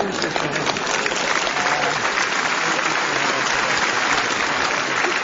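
A live theatre audience applauding: dense, steady clapping from many hands.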